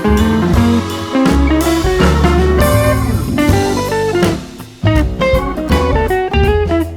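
Background music: a blues-style tune with guitar, bass and drums, with a brief drop in the sound a little after four seconds.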